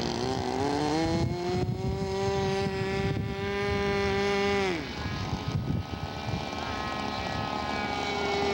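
Radio-controlled scale model PBY amphibian's engines running in flight: the pitch rises over the first couple of seconds, holds steady, falls sharply just before halfway, then runs steady again.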